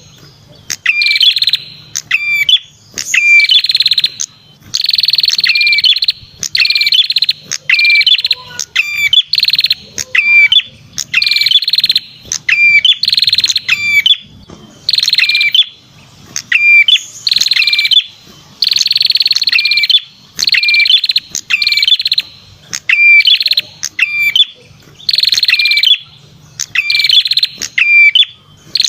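Lure-call recording of a perenjak kepala merah (red-headed prenjak) song. It is a loud buzzy trill broken by sharp upward-sweeping chirps, repeated in even phrases about every one and a half to two seconds.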